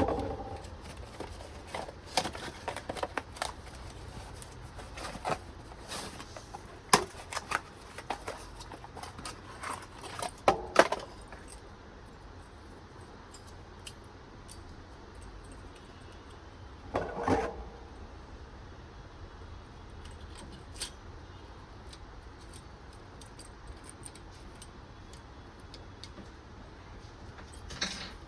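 Scattered clicks and knocks of small plastic and metal parts being handled as a CPU cooler fan is fitted onto a motherboard and its four push-pin locks are pressed into place. The clicks come thick for the first ten seconds or so, then only now and then.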